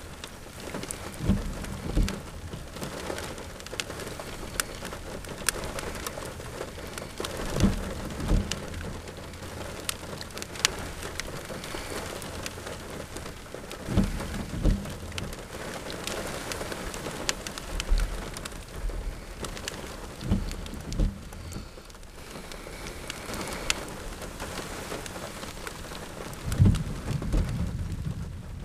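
Steady rain falling, with many sharp drops ticking close by. Short low thumps come every few seconds, often in pairs.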